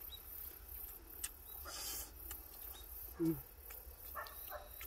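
Quiet eating sounds: a few faint clicks of chopsticks against metal lunchboxes, with a short low hum of a voice about three seconds in.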